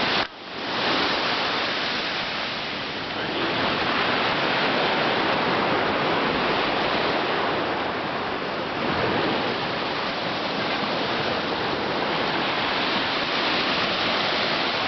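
A steady rushing noise with no distinct events or impacts.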